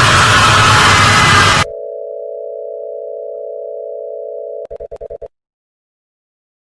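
Loud, harsh noise cuts off abruptly into a steady low electronic tone, like a telephone line tone, about a second and a half in. The tone stutters into a quick run of about six beeps and then stops dead, leaving silence.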